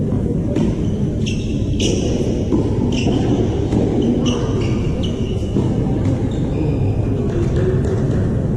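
Tennis ball strikes and bounces during a rally: sharp pings with a short high ring, about one every half second to a second, over a steady low rumble.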